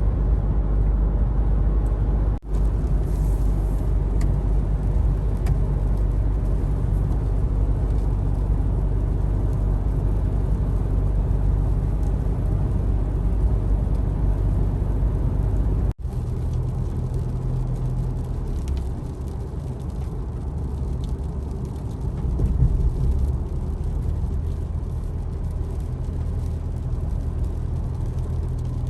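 A car running, a steady low rumble. It breaks off abruptly twice, about two and a half seconds in and about sixteen seconds in, and its low tone shifts slightly after the second break.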